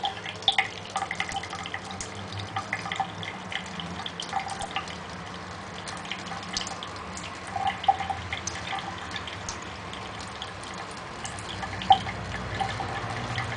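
Thin stream of water from a kitchen tap running into a stainless steel sink, with irregular small splashes and drips as a cat laps from the stream, and one louder tick near the end.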